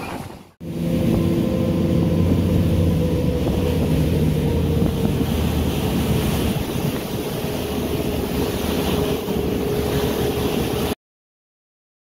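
A car ferry's engines drone with several steady low tones, under wind and water noise on the open deck. The sound cuts off suddenly near the end.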